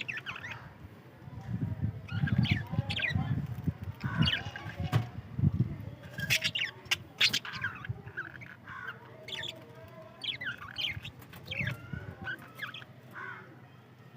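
Budgerigars chirping and chattering: a steady run of short, high chirps and squeaks.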